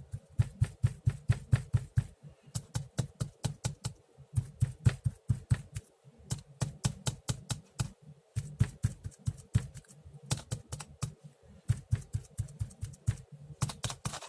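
An ink sponge dabbed rapidly and repeatedly onto an ink pad and onto paper through a stencil, a run of quick taps with dull thuds, about four to five a second, with brief pauses.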